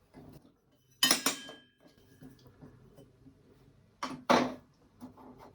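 Short lengths of steel DIN rail set down on a metal control panel backplate: a sharp clank about a second in that rings on briefly, then two more knocks about four seconds in.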